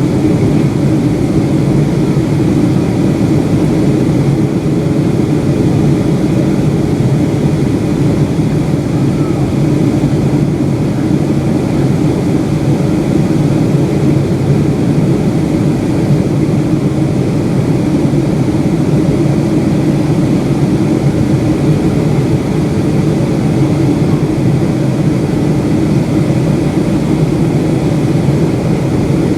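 Boeing 757-200 passenger cabin noise in flight: a steady, low rush of engines and airflow that stays unchanged throughout.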